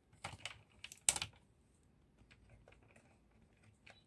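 Hard toy parts clicking and knocking together as a small part is handled and fitted onto a toy base by hand: a few light clicks, a sharper click about a second in, then scattered faint ticks.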